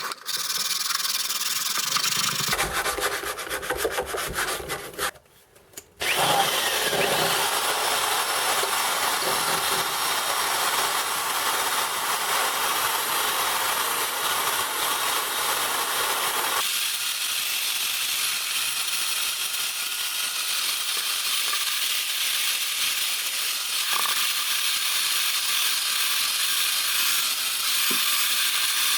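Continuous scraping and rubbing of a tool working over the surface of an old artillery box to clean it, with a brief break about five seconds in and a thinner, higher-pitched scrape in the second half.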